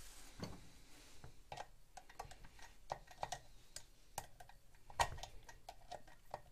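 Faint, irregular small metallic clicks and taps of hands and tools working a retaining clip (lock washer) onto a chainsaw's clutch drum shaft, with a slightly louder knock about five seconds in.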